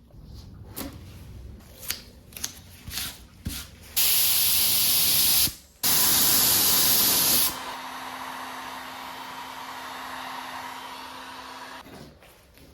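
Paint sprayed onto a surfboard in two long, loud hissing bursts that stop sharply. A quieter steady hiss with a faint low hum follows for about four seconds. A few light clicks come before the spraying.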